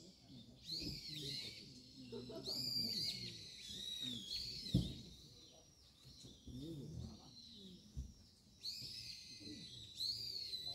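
A bird calling repeatedly outdoors: high whistled notes that arch down and back up, in runs of several, with faint voices murmuring underneath and a soft thump about halfway through.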